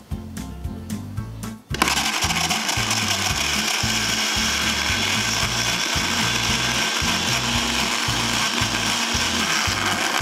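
Electric countertop blender switched on about two seconds in, its motor running steadily at high speed as it purées abalone innards and seaweed in water, then cutting off near the end.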